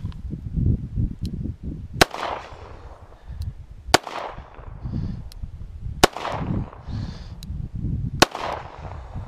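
Four shots from a Smith & Wesson J-frame .38 Special snub-nose revolver, about two seconds apart, fired at a padlock. Each shot is a sharp crack that rings out briefly.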